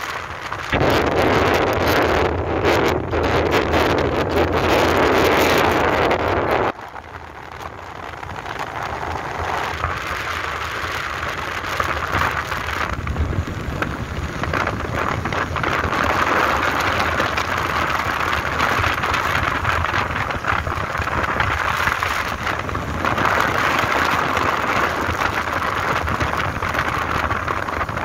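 Wind rushing over the microphone on a moving motorbike, with the bike's engine and road noise underneath. The rush is loudest over the first few seconds, drops off suddenly about seven seconds in, then builds back gradually and holds steady.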